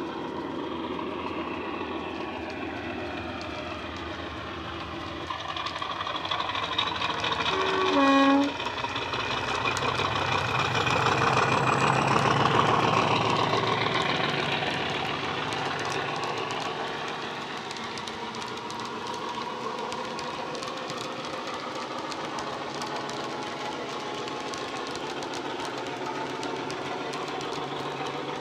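Hornby Class 50 model locomotive's DCC sound decoder playing a recorded Class 50 diesel engine through an EM2 speaker as the train passes. About eight seconds in, a two-tone horn sounds briefly, high note then low. The engine grows louder as the locomotive comes closest, around twelve seconds in, then settles.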